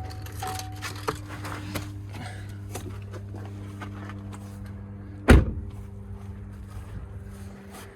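Pickup truck engine idling steadily, with a few light clicks, then a truck door slammed shut: one loud bang about five seconds in.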